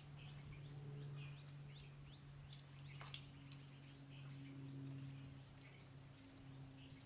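Faint bird chirps and short calls over a steady low hum, with two sharp clicks near the middle.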